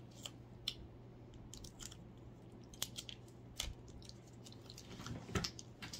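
Plastic candy-bar wrapper being torn open and handled, giving faint, irregular crinkles and crackles.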